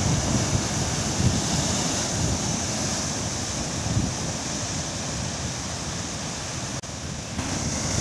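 Heavy surf breaking over rocks: a steady roar of crashing waves and churning foam, with wind buffeting the microphone. The sound drops out for a moment near the end.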